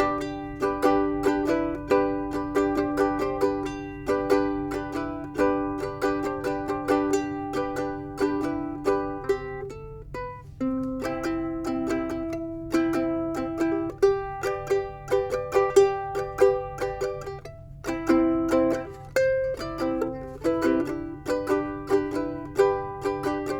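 Ohana VK-70 Vita-style soprano ukulele played solo, a steady run of chords and single notes, with short breaks about ten and eighteen seconds in.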